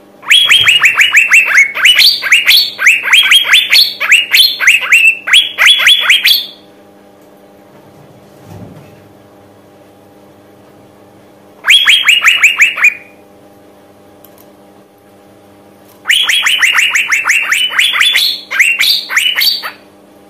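Female Asian fairy-bluebird (cucak biru) calling in fast runs of sharp, downward-slurred notes, about six or seven a second: a long run of about six seconds, a short one around twelve seconds in, and another of about four seconds near the end. It is a female's call of the kind used as a lure to set males singing.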